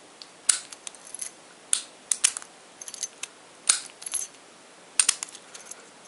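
Keys on a ring clinking against a Best 11B72 padlock's metal body while a key is handled in its core: scattered sharp metallic clicks and jingles at irregular intervals.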